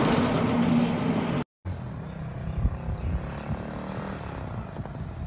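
A loaded lorry passing close on a highway, loud engine and tyre noise with the engine note dropping as it goes by, cut off abruptly about one and a half seconds in. Then, more quietly, a Yamaha R15 motorcycle's single-cylinder engine running at low speed as it approaches along a lane.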